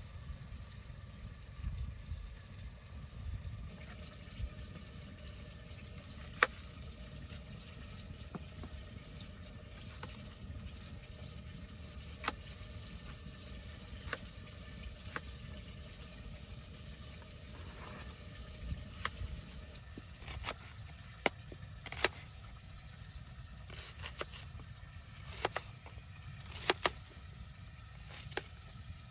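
A knife chopping onion on a plastic cutting board: irregular sharp taps, a few spaced out at first and then many close together in the last third, over a low steady rumble.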